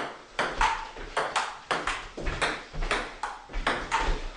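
Table tennis rally: a ping-pong ball clicking back and forth, striking the paddles and bouncing on the table, about two to three hits a second.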